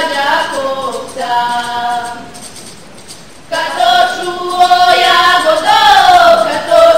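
A group of women singing a traditional folk song together in long held notes. The singing drops away for about a second near the middle, then comes back louder.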